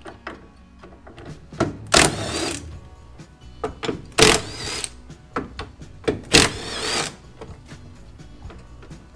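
AEG cordless impact driver undoing the door hinge bolts in three short bursts about two seconds apart, as the doors are being taken off.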